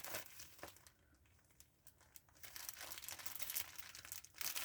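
Plastic yarn packaging crinkling as it is handled and opened, in short bursts of crackles with a pause in the middle.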